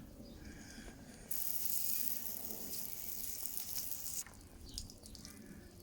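Water spraying with a steady high hiss for about three seconds, starting about a second in and cutting off suddenly.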